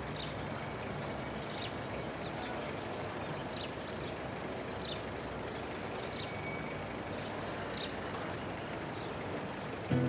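Steady outdoor street ambience, a low even hum like distant traffic, with short high chirps every second or so.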